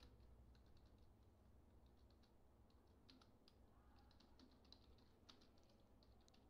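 Faint computer keyboard typing: quick runs of key clicks broken by short pauses.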